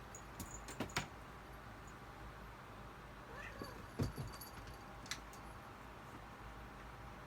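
A cat moving about and playing with a cat-teaser toy: a few light clicks and knocks in the first second, then soft thumps about four seconds in and another click a second later.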